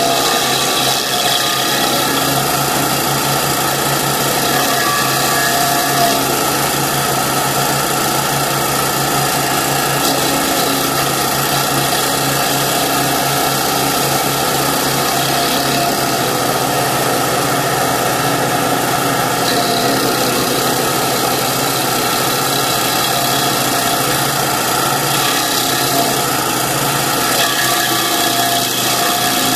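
Kanga mini loader's engine running steadily while powering a stump grinder, with a small shift in its sound about halfway through.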